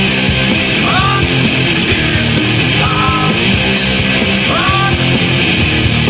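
Instrumental rock music with guitar and a steady beat, with a short rising sliding figure heard about every two seconds.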